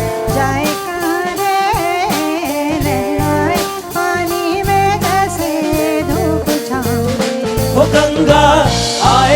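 Band music from a folk song arrangement: drum kit and bass guitar keep a steady beat under a melodic lead line with slides and wavers, growing louder near the end.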